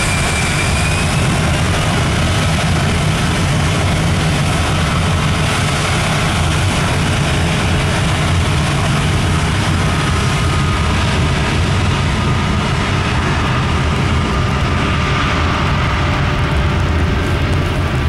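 The CRJ-900's two rear-mounted General Electric CF34 turbofans running at high power for takeoff: a loud, steady jet roar with a thin whine held at one pitch, as the jet starts its takeoff roll on a wet runway.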